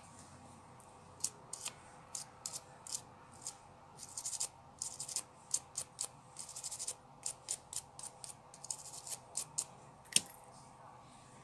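Toothbrush bristles scrubbing an iPhone XR's back camera lens ring in a run of short, irregular scratchy strokes, clearing it out before a new lens glass is fitted.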